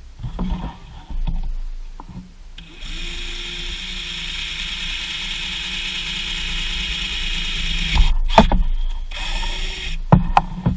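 Power drill running steadily for about five seconds while drilling a hole, followed by a few sharp knocks and a second short burst of drilling near the end.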